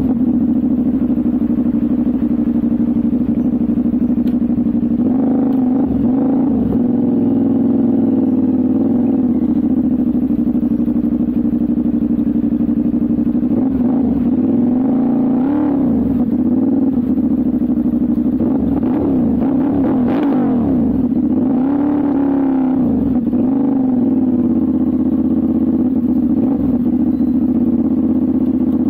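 CFMOTO 450SR parallel-twin engine and exhaust heard close up while riding at city speed. A steady note rises and falls in pitch a few times as the throttle is opened and closed, briefly early on and then longer swells around the middle and about three-quarters of the way through.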